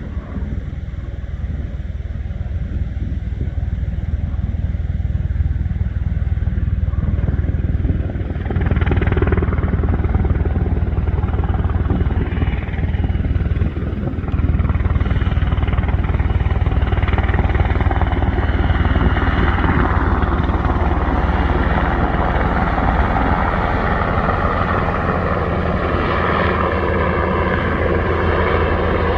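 UH-60 Black Hawk helicopter flying low, its rotor and engine noise growing louder about eight seconds in and staying loud, with a whine that slides in pitch as it passes.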